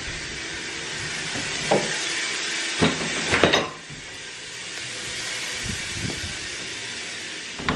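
Household laundry machine running with a steady hiss, with a few short knocks about halfway through and another at the end.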